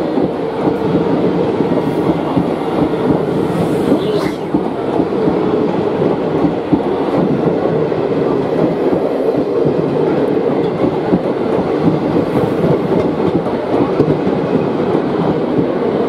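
A rake of Indian Railways express passenger coaches rolling past close by at speed: a steady, loud rumble of wheels on the track with clickety-clack from the rail joints.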